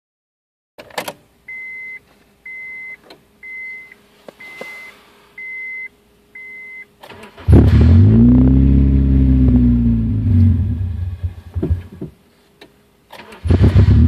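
A warning chime beeps six times, evenly spaced. Then the 2000 Honda CR-V's B20Z 2.0-litre four-cylinder starts and runs, its pitch rising and then falling, and dies out after a few seconds: the engine is stalling. It is started again near the end and runs unevenly.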